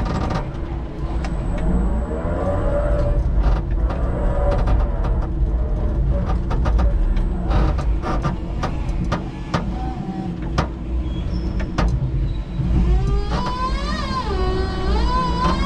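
Electric forklift truck at work: a steady low hum with a whine that rises and falls as it drives, and frequent knocks and rattles from the mast and forks handling pallets. Near the end a wavering, sliding tone comes in over it.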